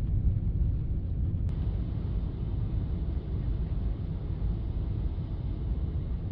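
Steady low rumble of a jet airliner heard from inside the passenger cabin, with a faint click about a second and a half in.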